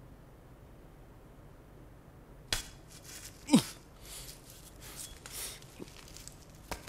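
A faint steady hum, then from about two and a half seconds in a run of sharp knocks and clicks; the loudest comes about a second later and ends in a quick falling tone.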